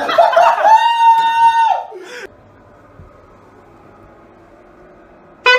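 A person's high-pitched scream, held on one pitch for about a second and a half and cutting off about two seconds in, followed by quiet room tone.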